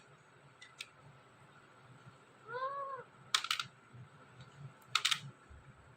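Talking parrot giving one short, soft call that rises and falls in pitch about two and a half seconds in, followed by a few quick, sharp clicks, once just after the call and again about five seconds in.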